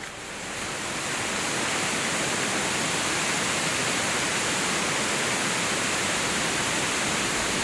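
Steady rush of fast-flowing water, a waterfall or rapids, swelling in over the first second or so and then holding level.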